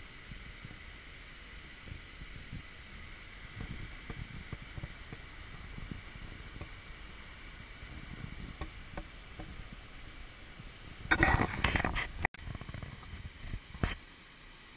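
Small woodland stream running over rocks, with gusts of wind buffeting the microphone. A loud, brief noise about eleven seconds in.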